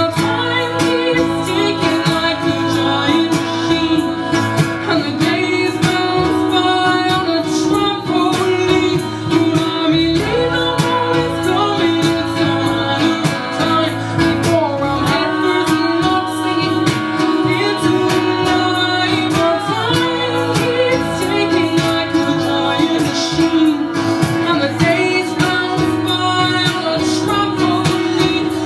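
Live acoustic band music: women singing over acoustic guitar and double bass.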